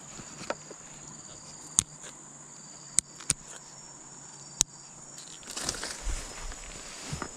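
Insects chirring steadily at a high pitch, with a handful of sharp clicks scattered through and a stretch of rustling handling noise from about five and a half seconds in.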